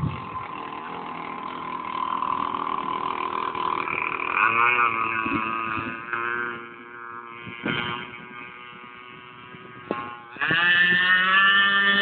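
Radio-controlled model boat's motor running with a steady, pitched whine that rises and falls as the throttle changes. It surges louder about ten seconds in.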